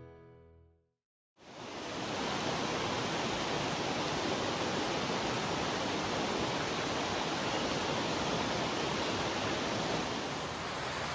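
Steady rushing of a river flowing over rocks, starting suddenly about a second and a half in after the tail of guitar music fades to silence.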